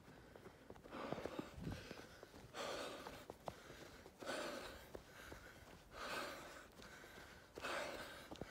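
A man breathing hard while running, five heavy, evenly spaced breaths.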